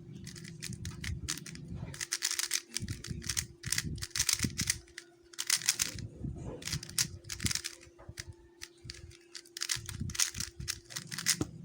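QiYi MS 3x3 speed cube being turned fast during a timed solve: quick runs of plastic clicking and rattling from the layer turns, broken by short pauses.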